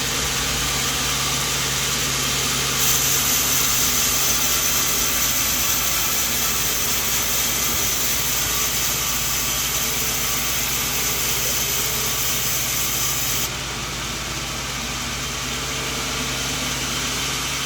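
Sawmill band saw running steadily with a low hum and a broad hiss; the hiss grows louder and harsher about three seconds in and drops back about thirteen seconds in.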